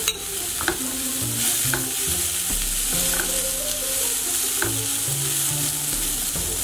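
Boiled chana dal being stirred and tossed with a silicone spatula in a frying pan, sizzling steadily in hot ghee and spices, with a few faint clicks.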